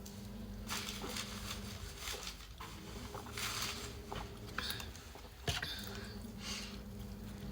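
Close-miked, wet chewing and biting of a kota, irregular smacks and squishes with one sharp click about five and a half seconds in.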